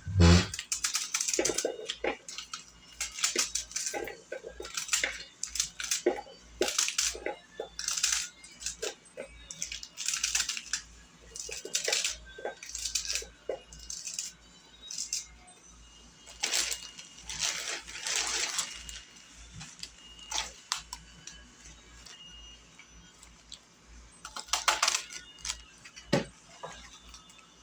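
Kitchen clatter while a salad is assembled: irregular clinks and taps of dishes and utensils, with a couple of longer rustling or shaking sounds.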